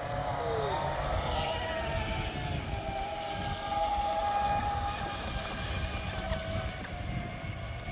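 Radio-controlled electric speedboats running across open water: a high, steady motor whine whose pitch wavers as they run, with a short falling tone about half a second in. Wind rumbles on the microphone underneath.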